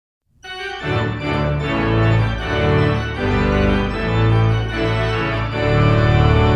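Music starting about half a second in: held organ chords over a bass line, the notes changing every second or so.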